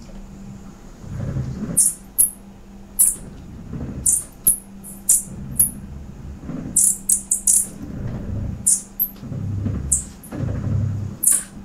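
Repeated short, high-pitched squeaks in irregular clusters, over low swells that rise and fade about every second and a half and a faint steady hum. This is the sound taken for a gate creaking open and shut, heard dozens of times on this camera; its source is unexplained.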